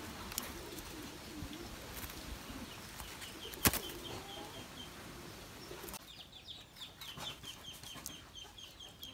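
Caged doves scuffling with wings flapping, with soft low coos in the first half and one sharp knock about three and a half seconds in. A rapid run of short high chirps, about three a second, fills the second half.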